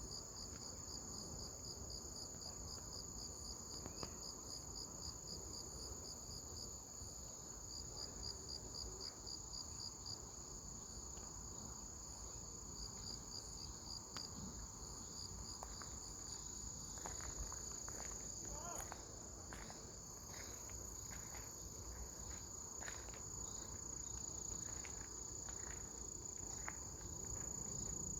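Crickets chirping: one keeps up a steady high trill, while another gives rapid pulsed chirps in bursts that stop around the middle.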